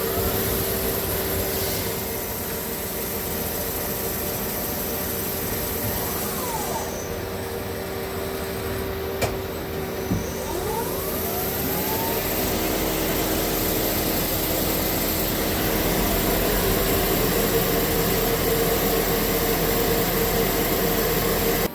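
CNC turning center running under power: a steady mechanical whine and hum, with the pitch sweeping up and down a few times as the spindle speeds up and slows. Two sharp clicks come about nine and ten seconds in, and a deeper hum joins about twelve seconds in.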